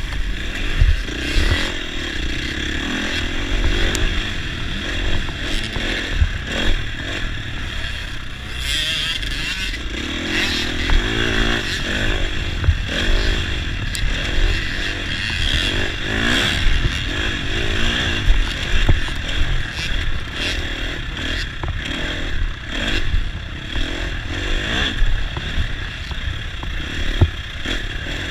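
Dirt bike engine heard from on board, running hard and revving up and down as it rides over a motocross track, with rattling and knocks from the bike over the bumps and wind rushing on the microphone.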